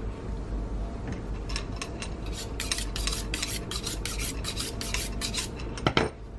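A butcher's knife being honed on a sharpening steel: a quick run of scraping strokes, about four a second, then a sharp knock near the end.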